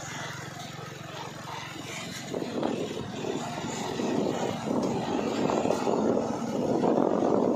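Loaded light cargo truck's diesel engine pulling away slowly close by. The engine note runs steadily at first, then grows louder and rougher from about two seconds in as the truck moves off under load.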